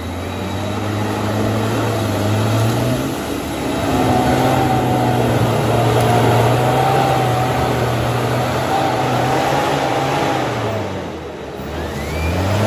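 Off-road 4x4's engine revving hard as it climbs a deep mud rut, with tyres spinning and throwing mud. The revs hold steady, ease off briefly about three seconds in and again near the end, then pick up once more.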